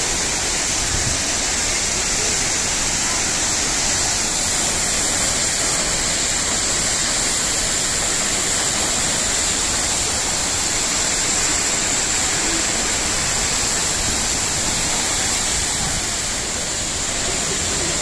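Kapuzbaşı waterfalls pouring down a cliff into a rocky stream: a steady, loud rush of falling water with no breaks.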